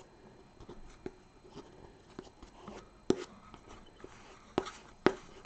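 Quiet, scattered taps and light scratches of a pencil end working thick gold liquid leaf onto a sheet of paper, with a few sharper knocks about three seconds in and twice near the end.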